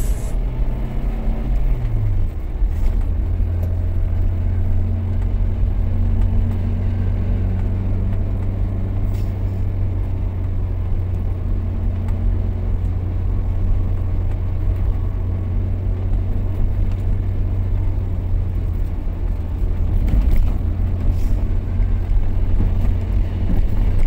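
Steady low rumble of engine and tyre noise from a vehicle driving along a paved road, heard from inside the cabin, swelling slightly about twenty seconds in.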